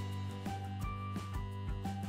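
Background music: plucked-guitar instrumental with a steady beat.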